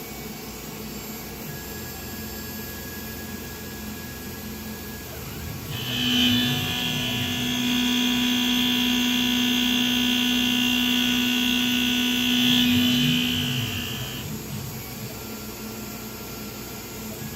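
Tormach 1100 CNC mill cutting 6061 aluminium with a half-inch four-flute high-speed-steel end mill at 3,600 RPM: a steady high whine over a lower hum begins about six seconds in, holds for about eight seconds, then fades away to the machine's background hum. This is the first test cut after a spindle rebuild, and it sounds halfway decent.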